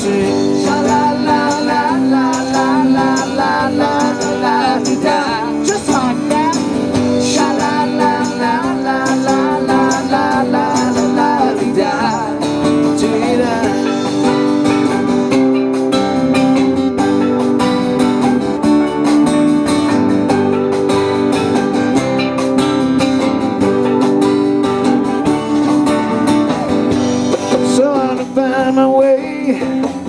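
Live band playing, with acoustic and electric guitars over congas and drums, at a steady level.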